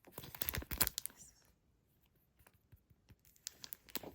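Packaging being handled and torn open, a dense run of crinkling and tearing for about the first second and a half, then quiet, then a short flurry of crackles near the end.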